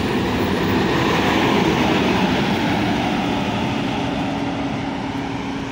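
Large tour bus's diesel engine and tyres going by at close range, then pulling away along the road. The sound is loudest about a second and a half in and slowly fades as the bus moves off, with a steady low hum throughout.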